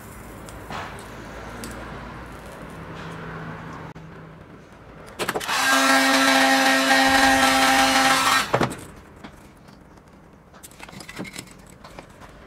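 Electric heat gun switched on about five seconds in, blowing steadily with a motor hum for about three and a half seconds onto the tin can's lid, then cut off. Quieter handling and a few light clicks come before and after it.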